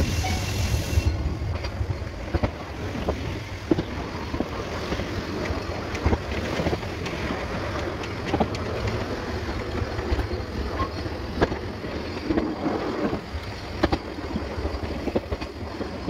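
Rumble of a narrow-gauge train running along the track, heard on board with wind on the microphone, with scattered sharp clicks throughout and a brief hiss in the first second.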